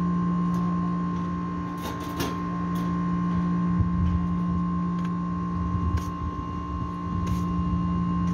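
A steady machine hum with a few light clicks and knocks, and low thumps of footsteps on concrete near the middle.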